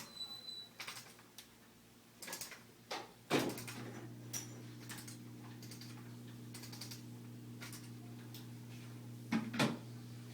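Scattered irregular clicks and taps. About three seconds in, a louder click and a small electric device starts up with a steady low hum. Two sharper clicks come near the end.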